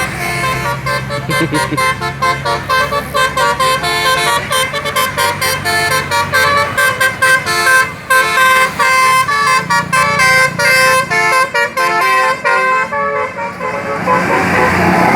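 Indonesian bus 'telolet basuri' musical horn playing a fast tune, one short note after another at shifting pitches, for about thirteen seconds. Near the end the tune gives way to a rushing noise.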